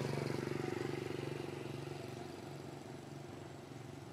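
A motor vehicle engine running with a steady hum, growing gradually fainter.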